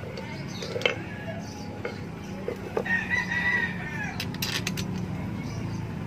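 A rooster crowing once, a long call about three seconds in, with a few sharp clicks and knocks of a washing machine motor being handled.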